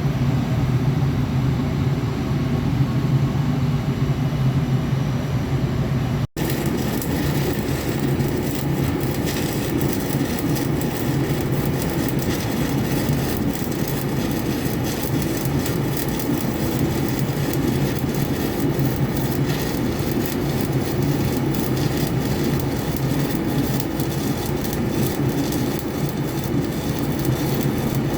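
Stick-welding arc with a 7018 electrode crackling steadily over a steady low hum, with a brief break about six seconds in.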